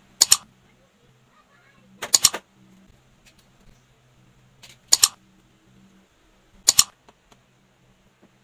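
Four sharp cutting snaps from a hand tool biting into flattened PVC pipe, roughly two seconds apart, some of them two or three quick clicks together.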